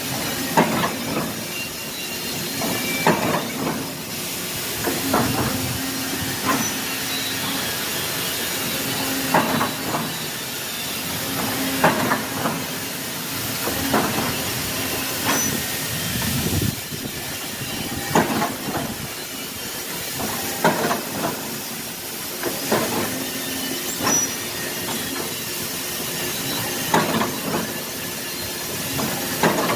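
CNC machine running in a machine shop: a steady hiss over a low hum, with a sharp knock or clunk every one to three seconds.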